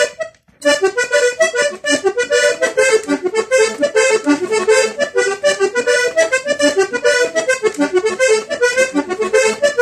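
Three-row diatonic button accordion playing a fast vallenato melody run, one quick note after another, after a brief break about half a second in.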